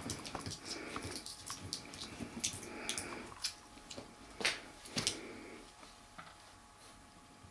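Six-week-old puppies scuffling and play-wrestling in a padded dog bed on a wooden floor: scattered clicks and taps of paws and claws, with two louder knocks about four and a half and five seconds in, then quieter scuffling.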